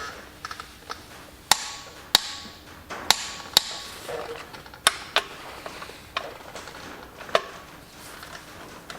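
Sharp metallic clinks and knocks, about seven loud ones spaced irregularly, of hand tools against a tractor flywheel and its bolts as a bar and a torque wrench are set in place.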